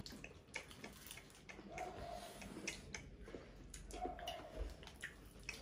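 People eating with their hands: quiet, scattered clicks and smacks of chewing and of fingers picking at food. Twice a short, faint hum of a voice.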